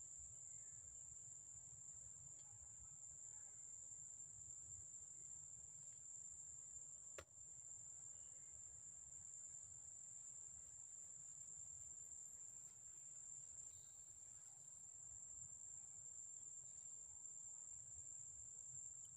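Faint, steady, high-pitched insect drone holding one unbroken note, with a single sharp click about seven seconds in.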